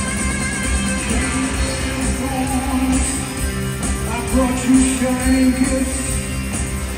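Live rock band playing full out, with electric guitars over bass and drums.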